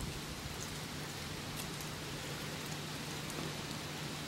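Steady hiss of background noise with a faint low hum underneath and a few faint, scattered ticks.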